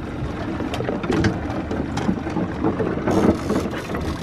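Fishing reel clicking while a hooked dorado (mahi-mahi) is fought on the line, with wind and water noise around the boat.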